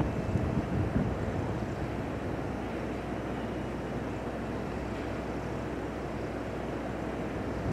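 Freight train rolling slowly past: an EF210 electric locomotive hauling two MT-4000 diesel railcars, a steady low rumble of wheels on rail with a few light knocks in the first second.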